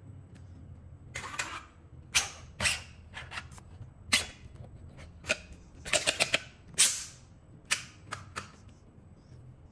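The hard plastic segments of a 3D-printed print-in-place collapsing drill sword clacking as the telescoping blade is pushed in and swung back out. It makes a series of sharp, irregular clacks, some in quick clusters.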